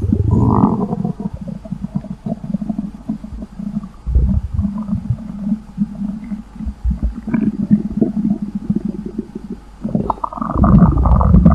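Stomach growling and gurgling: irregular low rumbles and gurgles, swelling louder and fuller near the end.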